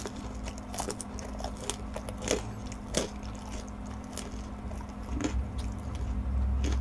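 Close-miked chewing of a piece of tangsuyuk (Korean sweet-and-sour fried pork) dipped at its tip in sauce, with scattered short wet mouth clicks. The pork has been fried a while and is no longer crispy, so there is little crunch.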